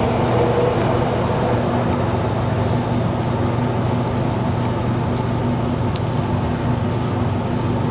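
Steady rumble and low hum of a moving vehicle heard from inside it.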